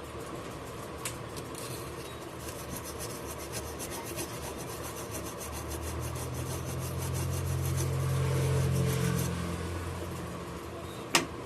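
Rapid, repeated rubbing or scraping strokes, typical of work on a phone's circuit board after soldering a charging socket, with a low hum that swells in the middle and a single sharp click near the end.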